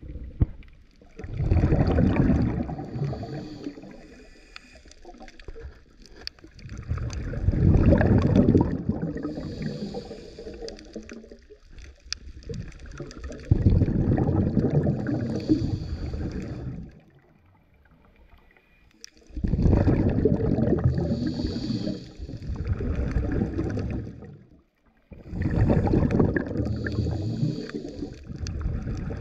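Scuba breathing through a regulator underwater: a loud rush of exhaled bubbles about every six seconds, five times in all, with quieter hissing gaps for the inhalations between.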